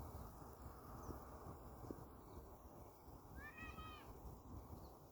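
A single faint animal call, one arched cry of about half a second, about three and a half seconds in, over a low background hush.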